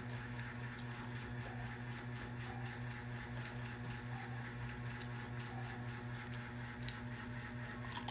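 Steady low machine hum throughout, with a few faint crunches of raw cucumber being bitten and chewed, the last ones near the end.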